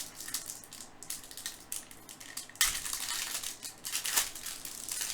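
Wrapper of a 2015 Topps Chrome baseball card pack crinkling as it is torn open and handled. The crackle is loudest and densest in the middle of the stretch.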